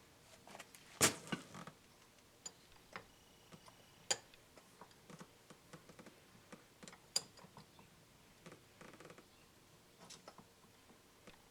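Sparse light clicks and taps of metal parts being handled while the shaft is fitted back into a Honda distributor. There is a sharper knock about a second in, and single clicks at about four and seven seconds.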